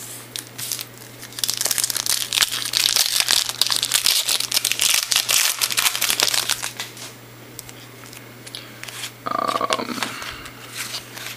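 Plastic wrapper of a baseball card pack being torn open and crinkled by hand, a dense run of crackling and sharp ticks that is loudest through the middle and eases off after about seven seconds as the cards are handled.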